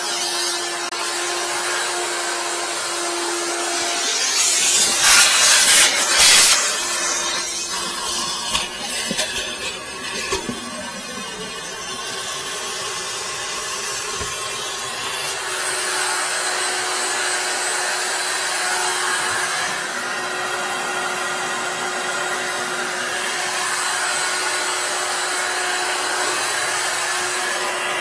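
Wet-dry vacuum motor running steadily with an airy hiss and a held hum, used on a frozen, blocked sink drain. It gets louder for a couple of seconds about five seconds in, with hose rubbing and handling noise.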